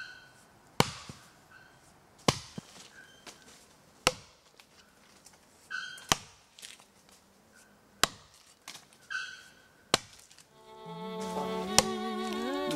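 Axe chopping into a tree trunk: sharp, evenly spaced blows, one about every two seconds. Near the end, fiddle music comes in under the chopping.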